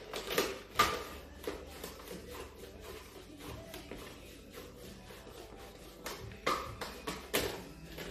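Tangelo oranges being sliced on a push-type mandoline slicer: the pusher is pressed down repeatedly, giving a few sharp knocks near the start and two more near the end, with softer scraping and ticking of fruit across the blade between.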